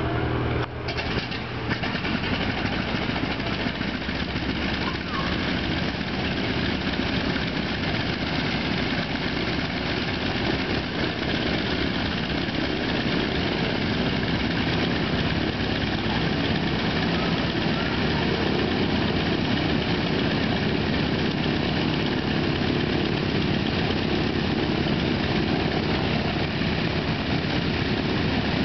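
Several T-28 Trojan radial engines running at idle together, a steady dense drone.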